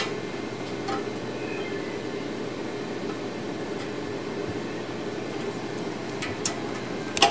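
Steady mechanical hum in the background, with a few light clicks and taps as a tape measure and marker are handled against a steel ammo can: one about a second in, two close together around six seconds in, and one just before the end.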